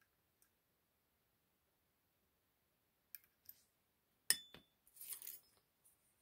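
Small steel lock-picking tools being handled and set down. Two light clicks come first, then a sharp metallic clink with a brief ring about four seconds in, a second click, and a short rustle.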